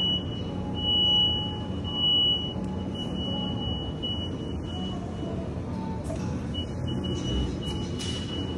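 Coffee-shop background: a thin, high steady tone that keeps breaking off and starting again about every second, over a steady low machine hum, with music playing.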